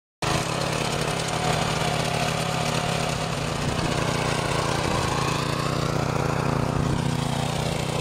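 Small engine of a walk-behind tiller running steadily as it drags a plough share through the soil to lift potatoes.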